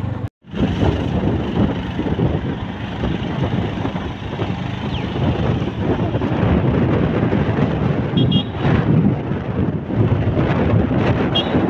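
Steady rushing road and engine noise of a moving vehicle, with wind buffeting the microphone at an open window.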